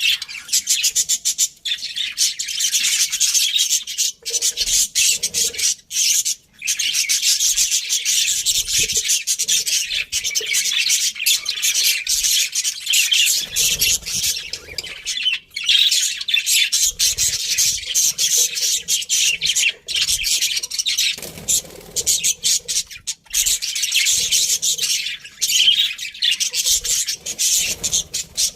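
A group of budgerigars chattering and warbling without pause: a dense stream of rapid high chirps and squawks, broken only by a couple of very short gaps.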